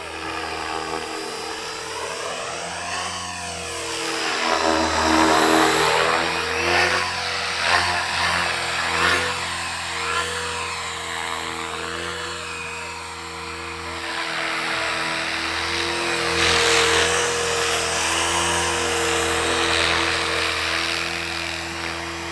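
Align T-Rex 500 radio-controlled helicopter flying, its rotor whine rising and falling in pitch as it passes close several times, loudest about five seconds in and again about sixteen seconds in.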